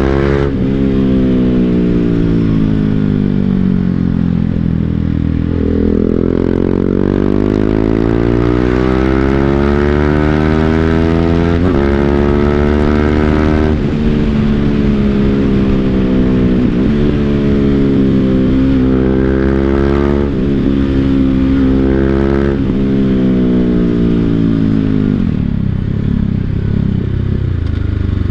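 BMW G 310 GS single-cylinder engine through an Akrapovic full-system exhaust, riding under load: the pitch climbs with the revs and drops sharply several times as gears are shifted, then falls away as the bike slows near the end.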